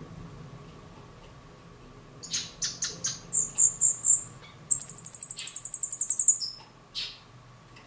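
A caged silil singing: a few sharp chips, then a short run of high whistled notes, then a loud, rapid high trill of about ten notes a second lasting about a second and a half, followed by two single lower notes near the end.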